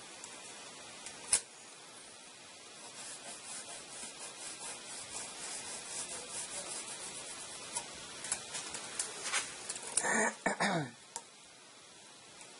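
A pencil is drawn along a metal straightedge on a wooden gunstock blank: a series of short, scratchy rubbing strokes, about two to three a second, starting a couple of seconds in after a single sharp click. About ten seconds in there is a brief pitched sound that slides in pitch.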